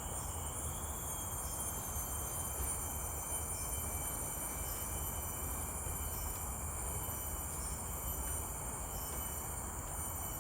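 Forest insects calling continuously: a steady high-pitched chorus of several unbroken tones, over a low steady rumble.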